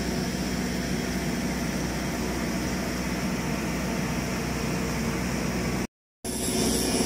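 Steady low drone of running machinery on a steel tank-building site, an even engine-like hum under a wide hiss. The sound cuts out for a moment near the end and comes back with more hiss.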